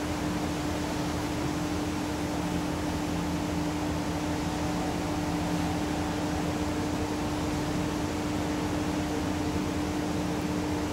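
Steady low hum over a constant hiss.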